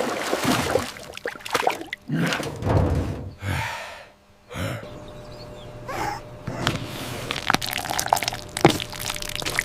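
A busy run of short cracks, knocks and thuds, with a brief lull about four seconds in.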